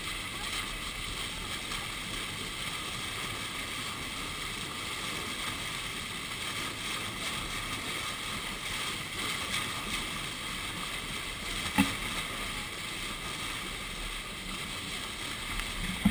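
Steady rushing noise of a boat under way, water and wind against a GoPro's waterproof housing, with a single sharp knock about twelve seconds in.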